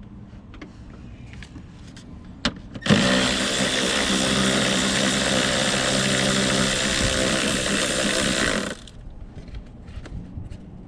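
Power tool running steadily for about six seconds, backing out a starter bracket bolt, then stopping suddenly. A few light clicks of tool handling come before it.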